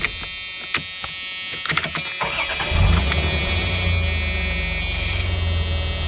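1995 Dodge Dakota's V6 engine shut off with the key, a few sharp clicks from the key and ignition switch, then the engine restarting just over two seconds in and idling steadily. The new ignition switch both shuts the engine off and restarts it.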